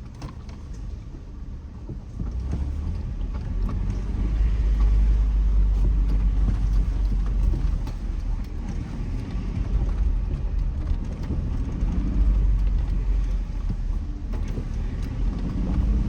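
Cabin noise of a 2007 Jeep Wrangler JK driving a rough mountain trail: a low rumble that grows louder about two seconds in and again about four seconds in, with scattered small knocks and rattles.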